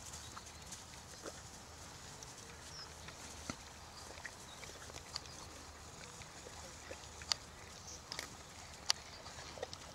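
Horses moving on grass: a faint outdoor background broken by scattered, irregular sharp clicks and knocks.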